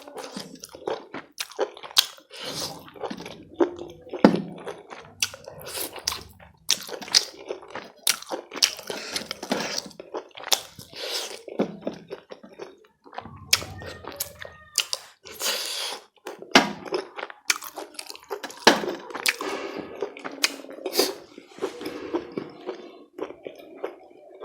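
Close-up chewing and mouth sounds of a person eating chicken curry and rice: irregular wet smacks and clicks, several a second, all through.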